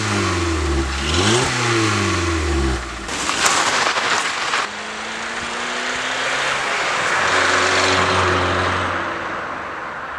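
Volkswagen Golf 4's 1.4-litre four-cylinder petrol engine revved up and down twice in quick succession. This is followed by a second or so of loud rushing noise, then the engine running at steady revs.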